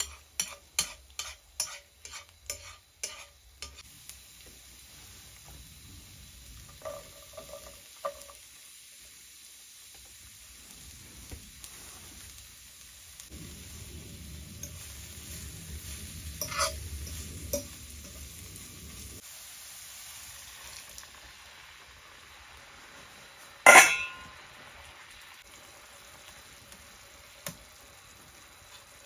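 Garlic and scallions frying in oil in a frying pan, a faint sizzle under stirring, with chopsticks clicking against the pan several times at the start and small clinks of a fork on the pan. About three-quarters of the way through comes one loud sharp knock.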